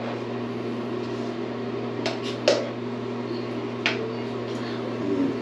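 Steady electrical hum in a small tiled bathroom, with a few short clicks and scrapes as a red plastic cup is handled, about two seconds in and again near four seconds.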